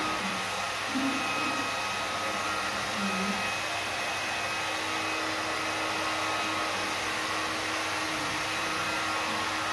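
Steady whir of a small electric blower motor, with a constant hum running unchanged throughout.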